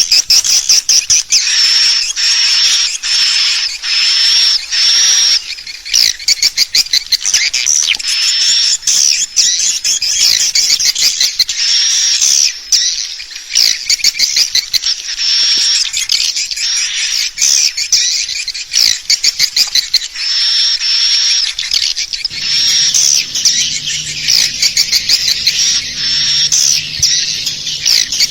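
Recorded swiftlet calls played as a lure sound for a swiftlet house: dense, rapid high-pitched twittering chirps and trills repeating continuously. A low steady hum joins about three quarters of the way through.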